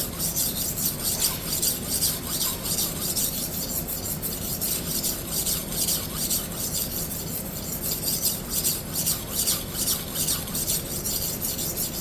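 Hard steel knife edge being stroked with heavy pressure across a coarse silicon carbide sharpening block, a rhythmic grinding scrape at about three strokes a second as a new cutting bevel is ground in.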